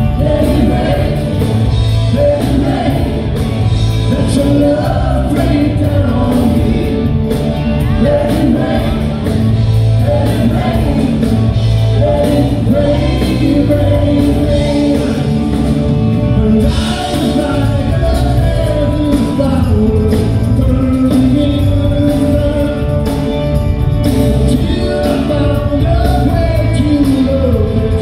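Live rock band playing: a male lead singer over electric guitar, bass and drums, loud and steady through the PA.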